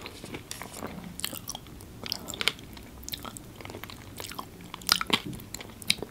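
Close-miked chewing and biting of food, wet mouth sounds with irregular crisp crunches and clicks, the sharpest about five and six seconds in.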